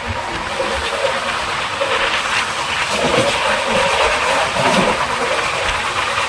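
Passenger express train running, with a steady rush of wheel-on-rail and carriage noise and some wavering squeal-like tones.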